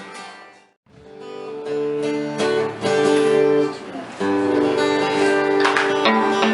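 Guitar strumming chords as a song begins, starting about a second in after a brief silence.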